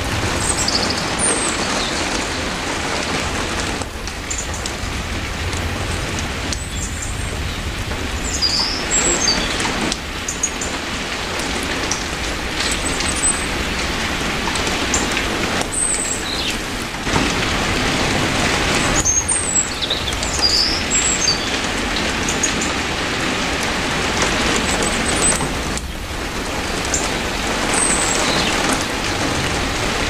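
Steady heavy rain falling as an even hiss, with short high bird chirps now and then.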